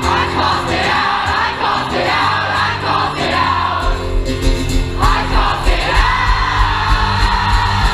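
Live rock band playing with singing over sustained guitar and bass notes, mixed with the voices of a crowd. About four seconds in, a steady, heavy kick-drum beat comes in.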